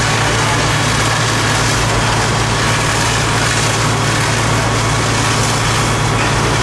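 A fire engine's heavy diesel engine running steadily, with a constant low hum, under an even rushing hiss. The engine is pumping water to the hose streams.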